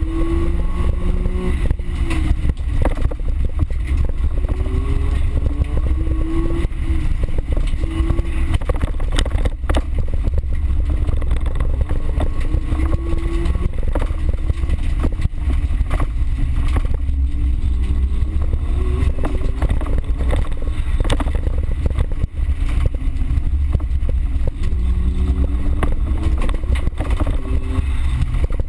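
Race car's engine heard from inside the cabin while racing on a dirt track, its note repeatedly climbing and dropping as the driver accelerates, lifts and shifts gears, over a heavy low rumble. Frequent short knocks and rattles from the car as it runs over the rough surface.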